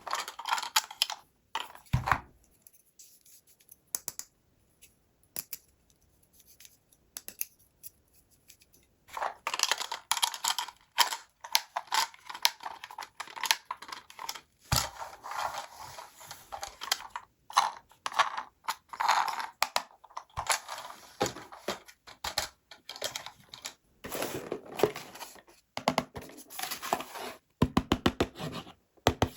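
Toy packaging being handled during an unboxing: rustling, scraping and tearing, with many sharp clicks. The handling is quiet for a few seconds near the start, then resumes in dense bursts.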